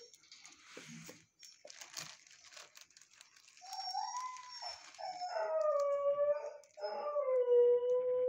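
Dog whining in long, high, drawn-out cries: three in a row starting about three and a half seconds in, each sliding slightly down in pitch, with soft rustling before them.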